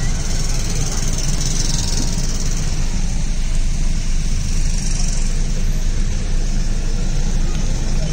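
Road traffic and a car engine heard from inside a car in slow, congested traffic: a steady low rumble with an even hiss over it.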